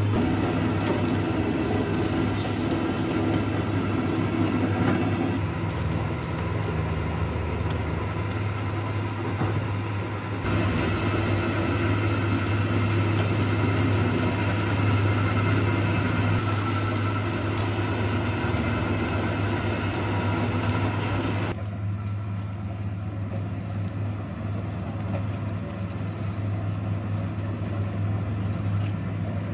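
Electric sugarcane juicing machine running, its motor giving a loud, steady low hum, with a mechanical noise above it that changes at a few points.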